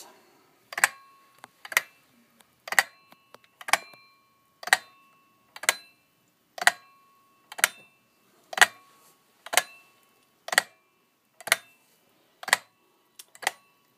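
Giant hand-cut watch movement ticking as it keeps time, a sharp tick about once a second with a brief metallic ring after each, and a few fainter clicks in between.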